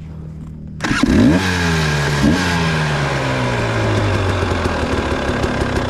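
Trail motorcycle engine idling, then throttled up hard about a second in, with a second short rev blip, its pitch then sliding steadily down as it settles into a steady run.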